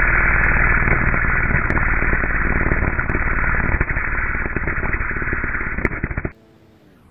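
Corded electric string trimmer running, its spinning line striking and shredding mushrooms on paving stones: a dense, dull, muffled rattling noise that cuts off abruptly about six seconds in.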